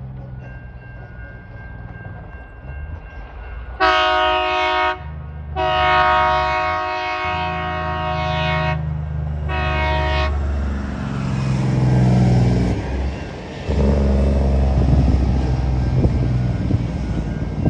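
TasRail diesel freight locomotives' horn sounded three times, a blast of about a second, a long blast of about three seconds, then a short one, over the low drone of the engines. The horn is sounded for the level crossing ahead. Afterwards the engine and wheel noise grows louder as the train draws nearer.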